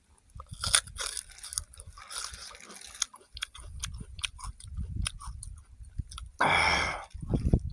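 Close-up chewing and crunching of food in the mouth, a run of irregular wet clicks and crunches, with a louder rush of noise lasting about half a second near the end.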